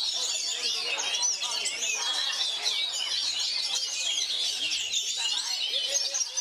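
Oriental magpie-robin (kacer) singing without a break: a dense, rapid run of varied high whistles and chirps.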